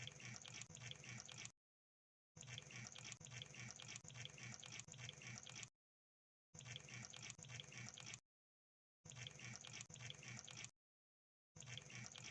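Crab sound effect: faint bursts of rapid crackling clicks, each lasting one to three seconds, broken by short gaps of dead silence, five bursts in all.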